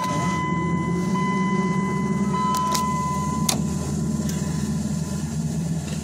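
2002 Dodge Ram 2500's 5.9 L Magnum V8 just after a cold start at about −25 °F, running steadily at a fast cold idle of about 1,100 rpm. A steady high tone sounds over the engine for the first three and a half seconds or so and ends with a click, with a few more clicks near the middle.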